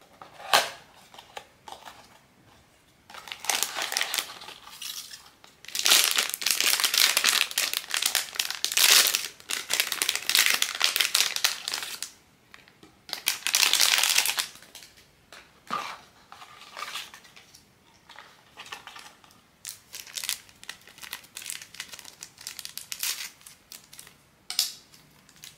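Blind-box figure packaging crinkling and crumpling as it is handled and unwrapped, in loud bursts of crackle for the first half, then lighter rustles and small clicks.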